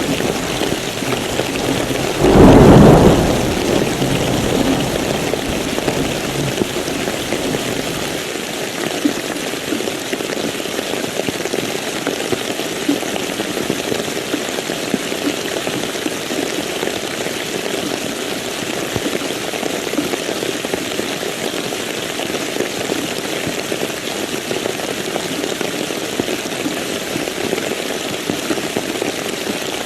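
Steady rain falling. A loud clap of thunder comes about two seconds in and rumbles off over the next couple of seconds.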